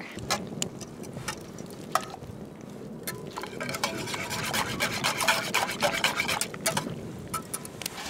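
Wire whisk stirring hot cocoa in a blue enamel camp pot, the wires scraping and clicking against the pot's sides, the strokes growing busier from about three seconds in.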